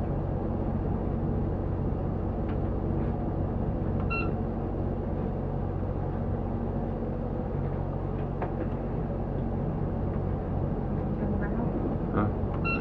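Motor cruiser's engine running steadily at slow, no-wake speed, a low even drone. A short electronic beep sounds about four seconds in and again near the end.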